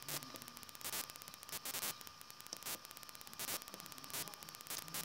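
Steady recording hiss and static with a thin high hum tone, broken by sharp clicks about every half second to second.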